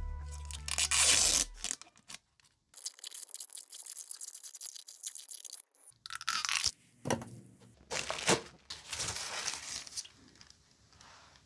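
Plastic adhesive tape pulled off its roll in several crackling peels and rips, one long drawn-out peel followed by shorter pulls.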